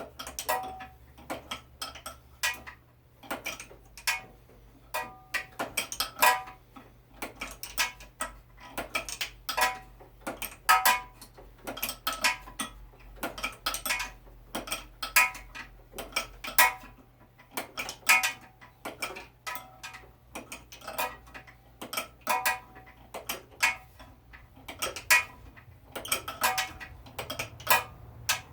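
Wrench and metal tools clicking and clinking against a mower's opposed-twin engine in quick, irregular runs of sharp ticks, each with a short metallic ring, as the starter is worked loose.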